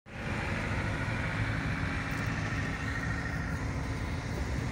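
Steady engine and road noise heard from inside a moving car's cabin, with a low rumble and a higher hiss that fades about three seconds in.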